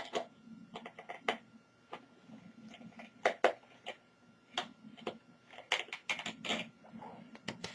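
Irregular light clicks and ticks of a small screwdriver and fingers working two small screws out of the metal shield over a laptop's CMOS battery, with a few quick clusters of clicks.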